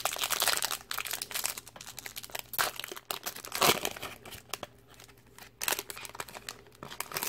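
Foil wrapper of a Pokémon trading card booster pack crinkling and tearing as it is ripped open and the cards are pulled out, in irregular crackles with a quieter stretch around five seconds in.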